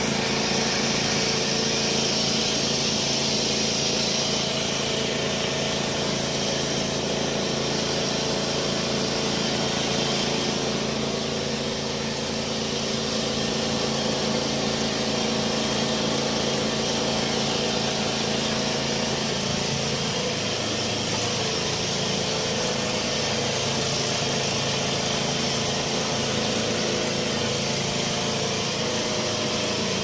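An engine running steadily, its note shifting a little about twenty seconds in.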